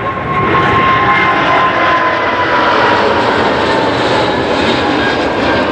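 Jet airliner engines running loud and steady on the runway, with a faint high whine that slowly falls in pitch.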